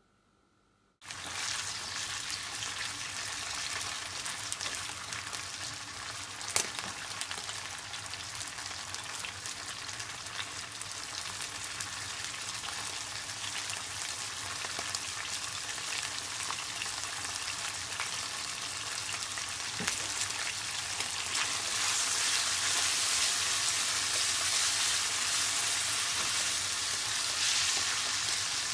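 Food sizzling in oil in a hot pan during a stir-fry, with now and then a sharp tap of a utensil against the pan. The sizzle starts abruptly about a second in and gets louder about two-thirds of the way through.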